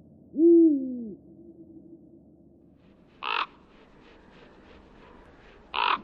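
An owl's single low hoot that rises and then falls in pitch, followed by two short, harsh, caw-like bird calls about two and a half seconds apart.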